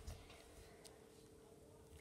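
Near silence: room tone with a faint steady hum and a few faint clicks.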